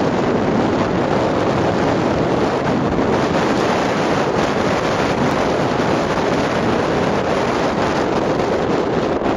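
Steady rush of wind on the microphone mixed with road noise from a car driving at speed.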